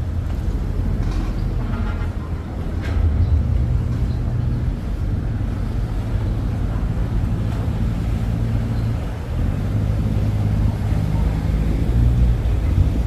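Boat engine running with a steady low drone that swells a little in level.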